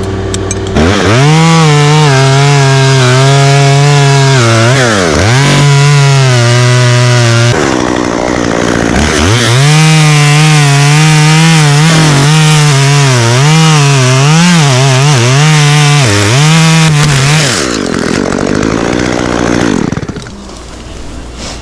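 Two-stroke chainsaw revved to full throttle and cutting into oak wood, in two long runs with a short break in between. The engine pitch sags and recovers as the chain bites, then winds back down to idle near the end.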